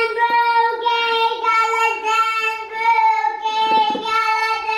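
A child singing, holding one high note in a string of short repeated syllables.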